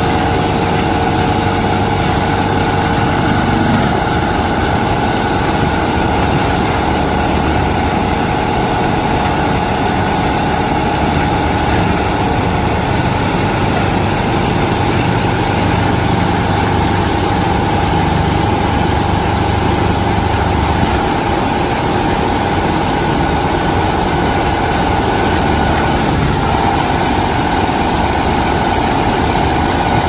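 Tractor-mounted forestry mulcher working: the engine runs steadily under load, with a constant whine above the engine noise.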